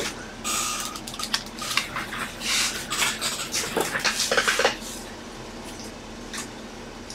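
Rummaging through trading-card supplies: plastic card sleeves and holders rustling and clattering in a busy run of short handling noises that stops about five seconds in.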